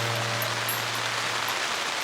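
Steady hiss of heavy rain, with a held background-music chord fading out about one and a half seconds in.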